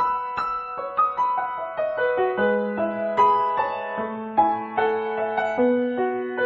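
Background piano music: a melody of struck notes, with lower notes joining about two seconds in.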